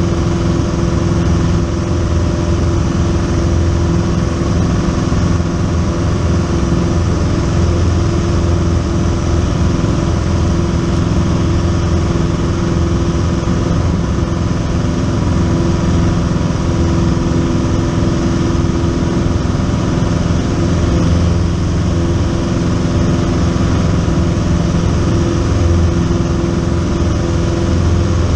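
Single-engine light aircraft's piston engine and propeller running steadily in cruise flight, heard from inside the cabin: a constant, even drone with no change in pitch.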